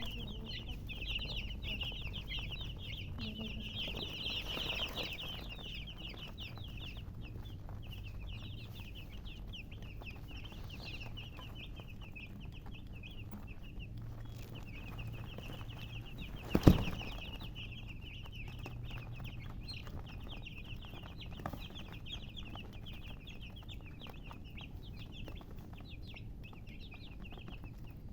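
A brood of baby chicks peeping continuously, many short high chirps overlapping. A single sharp knock about seventeen seconds in is the loudest sound.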